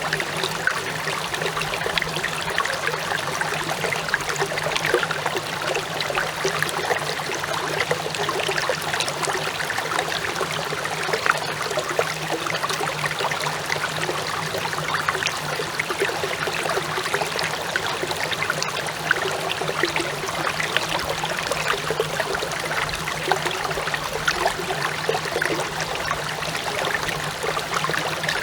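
Clear shallow stream babbling and trickling over stones, a steady continuous burble. Underneath it runs a steady low hum.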